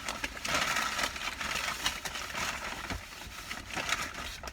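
A paper fast-food bag crinkling and rustling as someone rummages through it, a dense run of small crackles.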